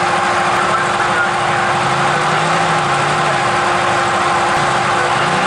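Off-road side-by-side engines idling steadily, with one engine's note rising and falling briefly about two seconds in.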